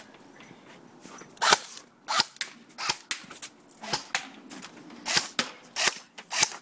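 Colt M4 airsoft rifle firing about eight single shots, sharp separate cracks starting about a second and a half in and coming a little under a second apart.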